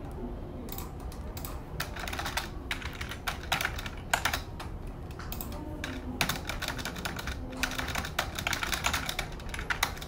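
Typing on a computer keyboard: quick, uneven runs of key clicks.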